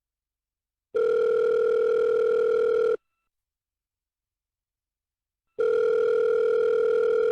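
Telephone ringing with a steady electronic tone: two rings, each about two seconds long, with a gap of about two and a half seconds between them.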